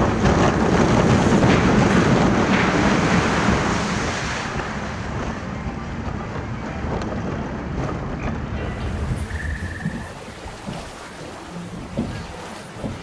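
A log flume boat rushing down the final drop and splashing into the water, a loud rush of air and water that lasts about four seconds. It then fades to a quieter wash of water as the boat glides on through the channel.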